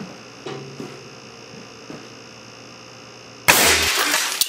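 Solenoid-valve air cannon firing an empty caulking tube from a 2-inch ABS barrel at 350 psi, about three and a half seconds in: a sudden loud blast of released air lasting about a second as the tube smashes into a radio. A faint steady hum runs before the shot and cuts off with it.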